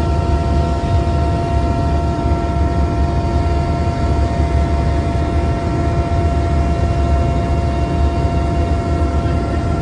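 Aircraft noise heard from inside the cabin: a steady, loud low rumble with several steady whining tones over it, unchanging throughout.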